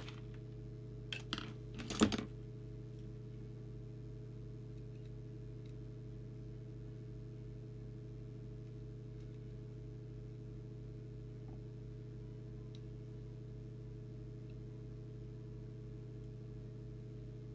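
A few short scrapes and clicks in the first two seconds as a tool scrapes tarry adhesive off a marking on a CB radio's circuit board, then only a steady low electrical hum.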